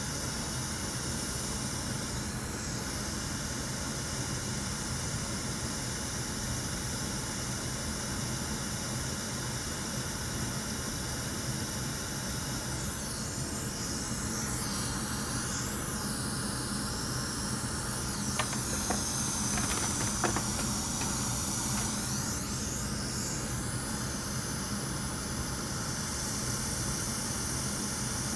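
Hot air rework station blowing a steady hiss onto an iPad's TriStar charging chip, reflowing the solder under the newly placed chip. The hiss shifts in tone for about ten seconds in the middle, with a few light ticks about two-thirds of the way through.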